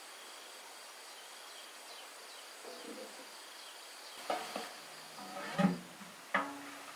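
Insects chirring steadily in the background, joined in the second half by a few short, sharp knocks or clatters, the loudest about five and a half seconds in.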